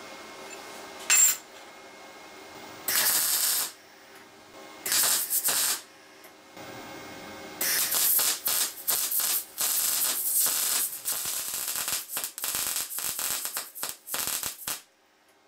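VEVOR MIG-200D3 welder's arc crackling as it welds thin 1.5 mm steel strips: a brief crackle about a second in, two short tack welds, then a longer bead of about seven seconds broken by brief stops, which cuts off just before the end.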